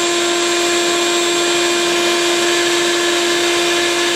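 Bee vacuum running, its motor giving a steady whine over a constant rush of air.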